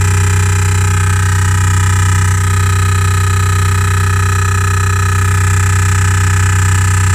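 Loud, steady electronic drone from the 2015 Renault Grand Scenic's Bose speakers, a deep hum with higher tones layered over it, which the owner calls a loud drilling noise. It is the sign of a fault in the R-Link navigation system that Renault later traced and cured by reprogramming it.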